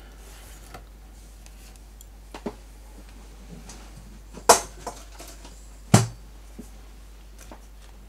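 Scattered clicks and knocks of small objects being handled and set down on a desk, the two sharpest about four and a half and six seconds in, over a steady low hum.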